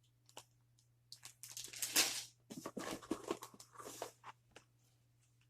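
Plastic Lego parts bag crinkling and rustling as it is handled, in irregular bursts over a few seconds, loudest about two seconds in.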